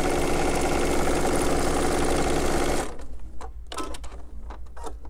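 Sewing machine stitching steadily at speed, stopping abruptly about three seconds in, followed by a few light clicks and handling sounds.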